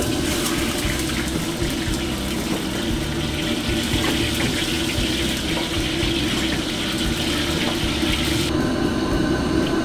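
Commercial wok station running: the low, steady roar of the wok burner under a rushing hiss that cuts out about eight and a half seconds in, while hot oil is ladled from the wok and poured back.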